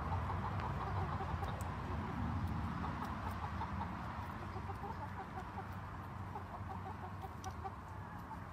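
A small flock of brown leghorn chickens clucking, many short calls overlapping throughout.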